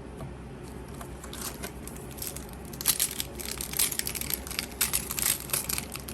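Foil Yu-Gi-Oh! booster pack wrapper crinkling and tearing as the pack is opened, a quick run of crackly rustles that grows busier and louder about three seconds in.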